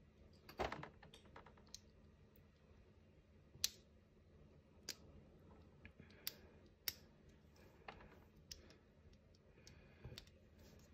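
Plastic Lego bricks clicking as they are handled and pressed together: a small cluster of clicks about half a second in, then single sharp clicks every second or so over a quiet background.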